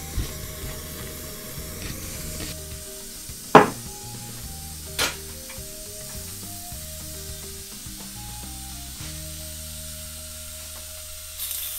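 Pressure release on an Afghan kazan pressure cooker: near the end, steam starts venting with a sudden loud hiss. Earlier come two sharp knocks about a second and a half apart, over background music.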